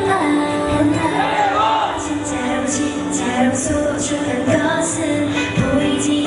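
K-pop dance song with female group vocals over a steady beat.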